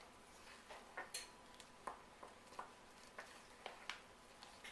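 Spoon stirring a stiff biscuit batter of Bisquick, milk and shredded cheese in a bowl: faint, irregular taps and scrapes, about two a second.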